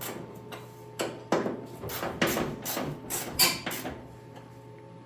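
A run of irregular metal clunks and knocks, several in quick succession, from work on the hood and its hinges, over a steady low hum.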